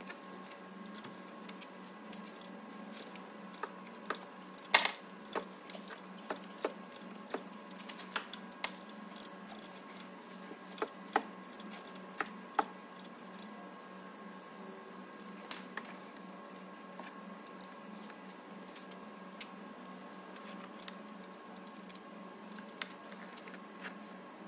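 A18XER 1.8 petrol engine being turned over by hand at the crankshaft, two full rotations to check the timing after a new timing belt: irregular clicks and knocks from the wrench and the turning engine, the loudest about five seconds in, over a steady low hum.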